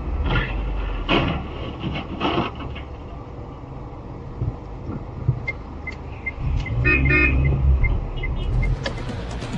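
Car horns honking in traffic: three short toots in the first couple of seconds, then a longer blast about seven seconds in, over the low rumble of idling engines. A string of short, high beeps repeats about three times a second in the later part.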